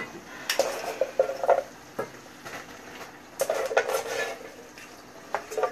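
Metal cooking pot knocking and clattering as it is handled over the stove, in several short bursts of rattles and scrapes.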